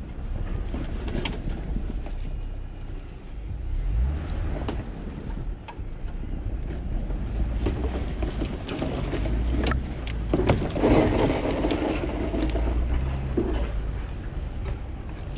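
Jeep Gladiator pickup driving off-road in snow: a steady low engine and tyre rumble with scattered knocks and bumps. A louder rush of noise comes from about ten to thirteen seconds in.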